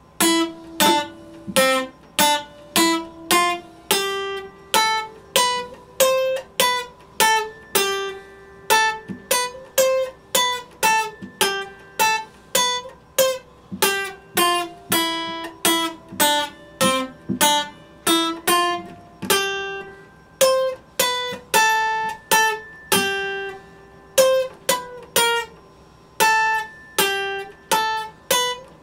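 Epiphone steel-string acoustic guitar played solo: a melody of single picked notes and chords, about two a second, each ringing and dying away. It starts right after a short pause and stops briefly at the very end.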